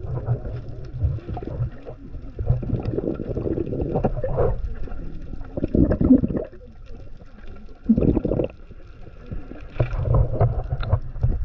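Muffled underwater water noise as heard by a camera held below the surface: low rushing and gurgling, with louder surges about six and eight seconds in.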